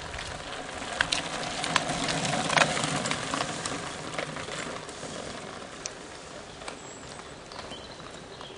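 Mountain bike passing close by on a loose gravel track: tyres crunching over stones, with scattered sharp clicks. It is loudest about two and a half seconds in, then fades as the bike moves away.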